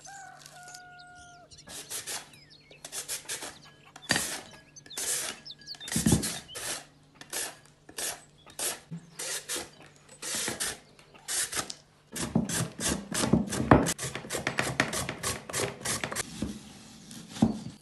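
A vegetable being scraped by hand with a kitchen tool: rhythmic rasping strokes about two or three a second. About two-thirds of the way through they come faster and heavier.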